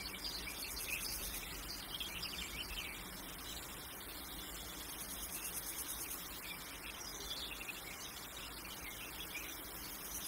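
Insects chirring steadily with scattered bird chirps. A high, pulsing insect trill swells about halfway through and again near the end.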